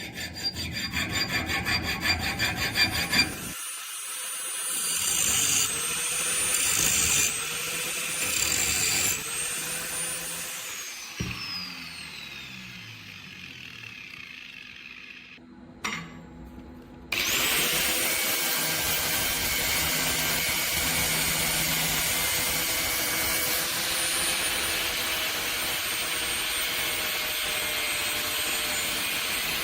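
Metalworking on a blade: quick rhythmic rasping strokes for the first few seconds, then scraping with wavering tones. From a little past halfway, a machine runs steadily with a thin high whine.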